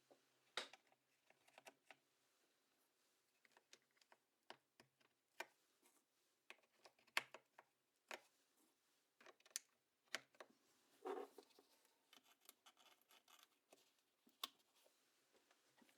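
Keycult No.1 TKL mechanical keyboard with Korbs switches on a polycarbonate half plate, keys pressed one at a time: single sharp clacks at uneven gaps of a second or more. About eleven seconds in comes a longer, lower press.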